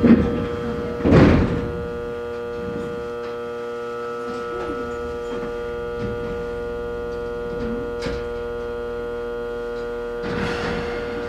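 Electric train standing at a station platform, its onboard equipment giving a steady electrical hum. Two thunks in the first second or so, the louder one as the sliding doors shut. A short hiss near the end.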